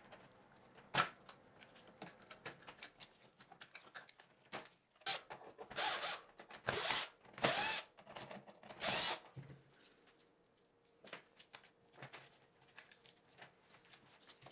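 Cordless drill backing small screws out of a plastic keyboard case in a run of short bursts of a fraction of a second each, clustered around the middle. Sharp clicks and light clatter from handling the plastic and screws come in between.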